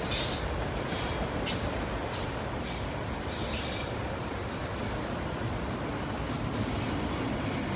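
Freight train's autorack cars rolling past in a steady rumble, with several short high-pitched wheel squeals coming and going at irregular moments.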